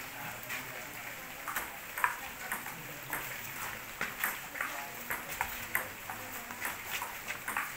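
Table tennis rally: the celluloid ball clicking sharply off the rubber paddles and the table, about two knocks a second.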